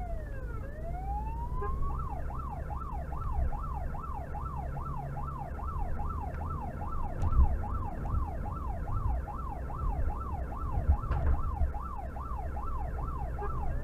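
Emergency response car's electronic siren heard from inside the car over engine and road noise. It runs a slow wail, switches to a fast yelp of about two and a half cycles a second about two seconds in, and goes back to the wail near the end.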